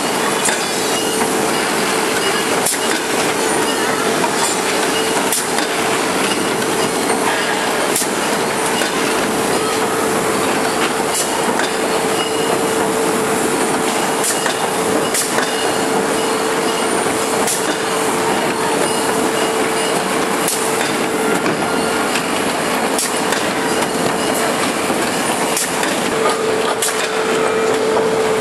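A veneer composer (core veneer builder) running: steady machine noise with a constant mid-pitched hum and occasional sharp clicks.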